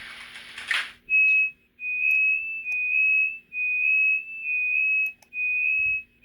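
ICE3 sound effects played by an ESU LokSound V5 decoder through a small test speaker: about a second of hiss, then a series of about six short, high whistle-like tones with brief gaps between them.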